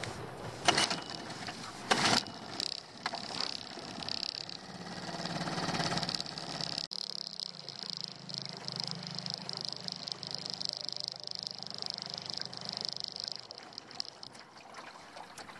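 Two sharp knocks in the first two seconds, then a small 2 hp outboard motor running steadily with a low hum and a high whine, being warmed up. The motor sound fades out near the end as it is shut off.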